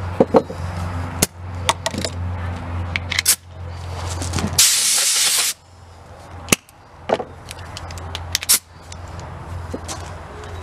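A compressed-air blow gun fired in one hissing blast of about a second near the middle. Scattered clicks and knocks of a metal piston and tools being handled and set down on a wooden table come before and after it.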